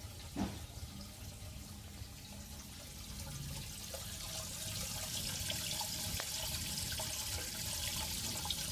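Water in an aquarium trickling and splashing steadily, as from a filter outflow, growing louder from about halfway through.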